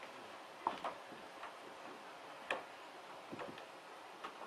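Quiet room hiss with a few scattered light clicks and knocks, about five in all, the sharpest about two and a half seconds in.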